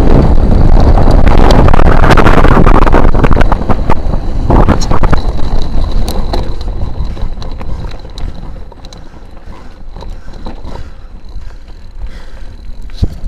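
Wind buffeting the action camera's microphone on a moving mountain bike, loud for the first four seconds or so, then dropping away as the bike slows onto a rocky climb. The quieter part is filled with scattered clicks and rattles from the bike going over stone.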